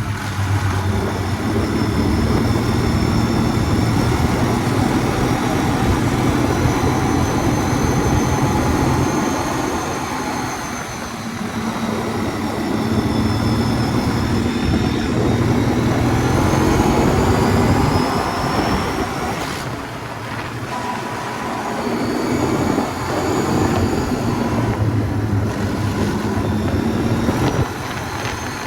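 2009 Can-Am Outlander 800 ATV's freshly rebuilt V-twin engine running while riding, its speed rising and falling with the throttle. A high whine glides up and down along with it.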